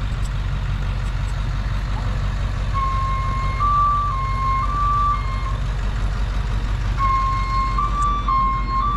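Boom crane truck's engine idling steadily. Twice, a high warning tone sounds for a few seconds, stepping back and forth between two close pitches.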